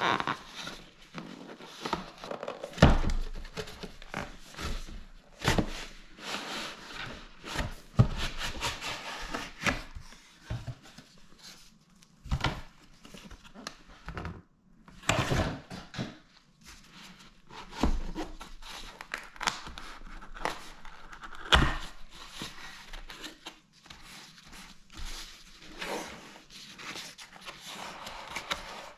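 Unboxing: packaging rustling and crinkling as it is handled and opened, broken by frequent sharp knocks and thuds of the box and its contents being set down.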